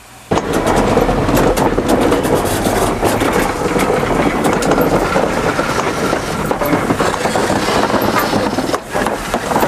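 USATC S160 2-8-0 steam locomotive moving slowly past at close range: a dense, steady rush of noise with frequent clanks and knocks from the wheels and motion. It starts suddenly about a third of a second in.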